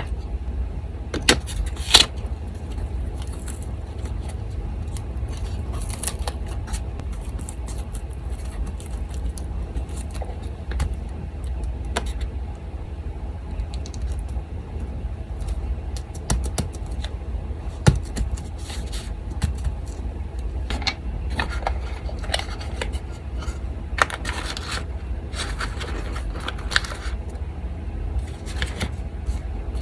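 Paper being handled and rustled, with scattered small clicks, taps and scrapes of craft tools, a busier stretch of rustling late on, over the steady low hum of an electric fan.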